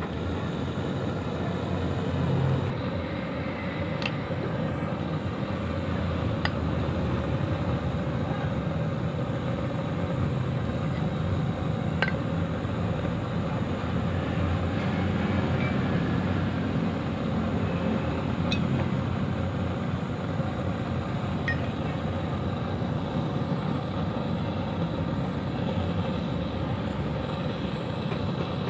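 Steady low mechanical rumble, with a few light clicks scattered through it.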